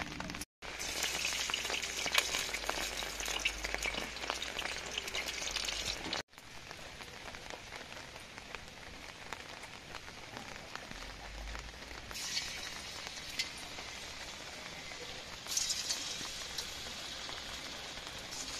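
Dough balls of wheat-flour (atta) manchurian deep-frying in hot oil in a kadhai: a dense sizzling crackle, loudest in the first few seconds. It is quieter after that, with fresh surges of sizzle about twelve and fifteen seconds in as more balls go into the oil.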